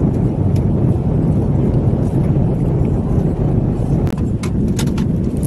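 Steady low rumble of an airliner cabin in flight, the engine and air-system noise filling the cabin. A few light clicks of the wooden spoon against the paper meal box come near the end.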